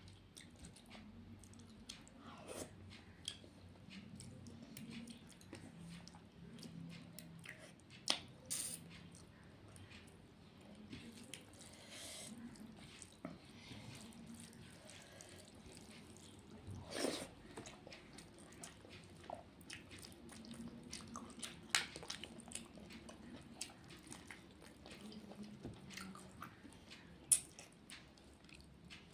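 A person eating rice and fish-head curries: faint chewing and wet mouth sounds with scattered small clicks, and a few sharper clicks and taps now and then.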